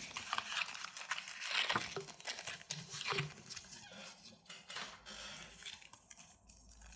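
Plastic blister packaging crinkling and crackling as it is pried and torn open, the noises thinning out over the last few seconds.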